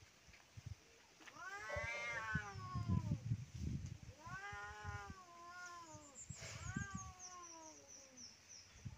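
Two cats yowling at each other in a fight: three long, drawn-out wails that rise and then fall in pitch, the middle one with two voices overlapping.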